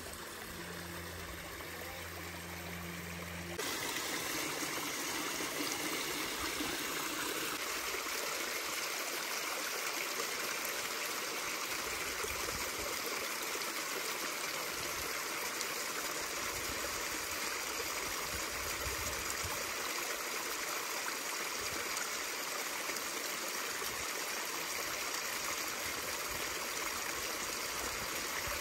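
Small mountain stream trickling and splashing over rocks: a steady rush of running water, which turns louder at a cut about three and a half seconds in.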